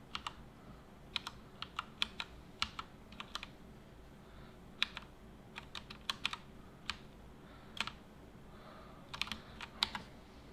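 Computer keyboard keys clicking irregularly, singly and in quick little clusters, as keys are pressed while playing a PC game.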